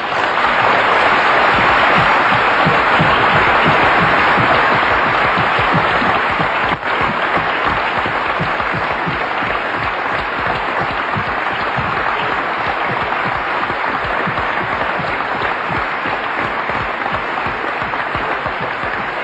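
Large audience applauding, a long unbroken ovation that eases off only slowly, with a brief drop in level about seven seconds in.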